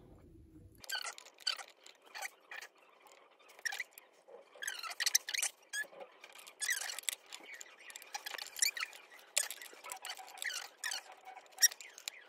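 Irregular small clicks, taps and squeaks as metal electrode strips and alligator clips are handled and moved against glass beakers, while the fruit-battery cells are rewired.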